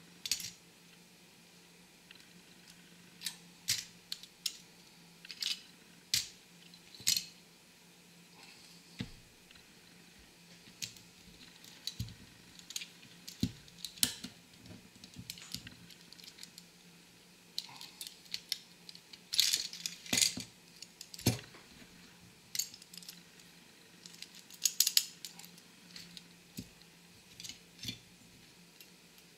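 Irregular sharp clicks and taps of small die-cast metal and plastic toy-car parts being handled, pried apart and set down, with quicker runs of clicks about two-thirds of the way through and again a little later. A faint low hum lies underneath.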